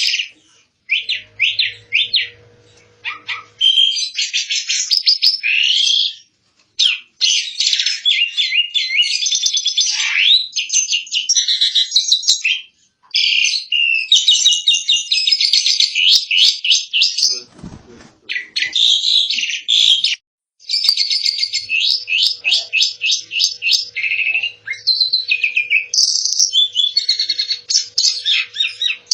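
Asian pied starling (jalak suren) singing: long phrases of rapid chattering notes, high and dense, broken by a few short pauses.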